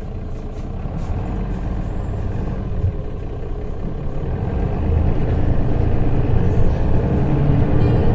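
Bus running, heard from inside its cabin: a steady low rumble of drive and road noise that grows louder about five seconds in.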